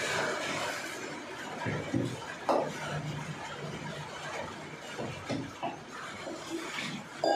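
Steel kitchen vessels being handled: clinks and scrapes of metal pots and bowls, with a sharp ringing clink about two and a half seconds in and another near the end.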